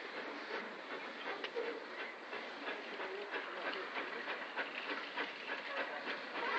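Steam locomotive approaching under steam, its exhaust and running gear making a steady rushing clatter.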